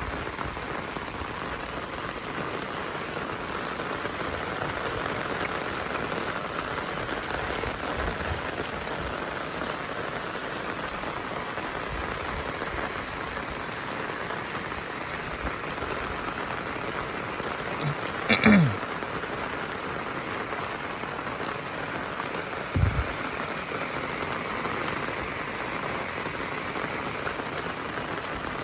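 Heavy rain falling steadily. About two-thirds of the way through comes one short call that drops in pitch, and a few seconds later a single low thump.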